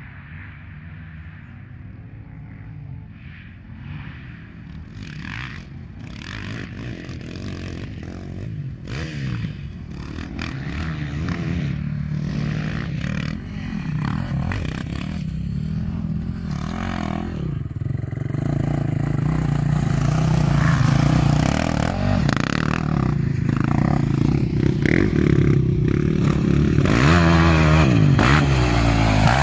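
Racing ATV quad engines running, growing steadily louder across the half minute, with many short knocks and clatter. Near the end the revs rise and fall sharply.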